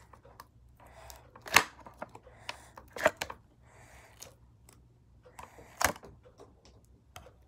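Hands working the slime materials and container: a few sharp clicks or knocks, the loudest about a second and a half in and again near six seconds, with soft rustling between.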